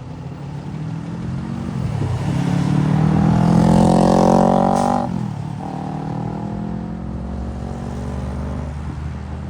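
Emergency vehicle's engine accelerating through the gears, its pitch climbing and then dropping at shifts about two, five and nine seconds in. It is loudest around four seconds in, with a rush of tyre and road noise, as it passes close.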